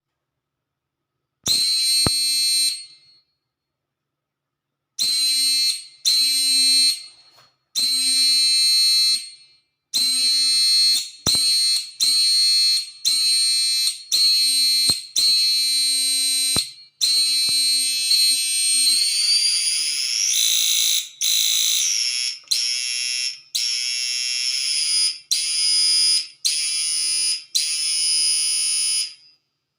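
A homemade electronic oscillator or inverter circuit whining with a high-pitched tone, switched on and off in about sixteen bursts of one to two seconds, with sharp clicks at some of the switchings. About two-thirds of the way through, the pitch slides upward and wavers, and the later bursts hold the higher pitch.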